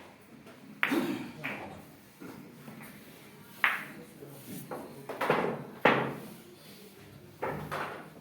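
Billiard balls striking one another: a series of sharp clacks, the loudest about a second in and again around four and six seconds in, each with a short ringing decay.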